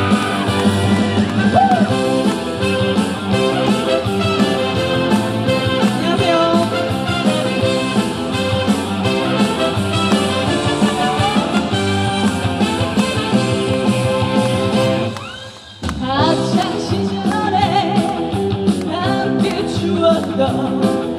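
Upbeat band music with guitar and a steady beat, the intro of a trot-style twist song. It drops out for a moment about fifteen seconds in, then kicks back in.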